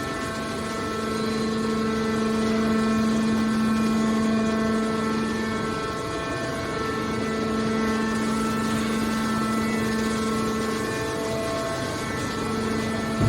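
Hydraulic metal scrap baler running, its hydraulic power unit giving a steady machine hum over a noisy rumble. The hum eases slightly a few times, as the load on the press changes.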